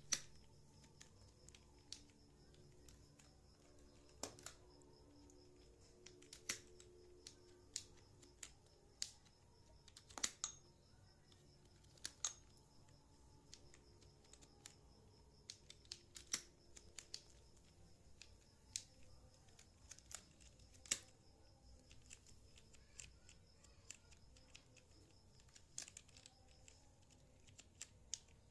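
Computer keyboard being typed on slowly: quiet, sharp single key clicks at irregular intervals, about one or two a second, over a faint steady hum.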